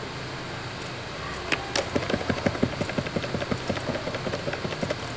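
Computer mouse scroll wheel turned in a rapid run of clicks, several a second, from about a second and a half in until near the end, over a low steady hum.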